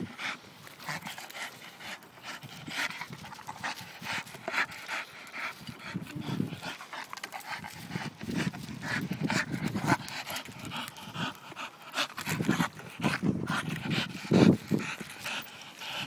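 Staffordshire bull terrier panting close by in quick, uneven breaths, with rustling as it noses about in dry leaf litter.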